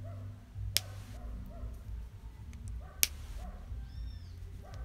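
Short animal calls repeating about twice a second over a steady low hum, with two sharp clicks, about a second in and about three seconds in.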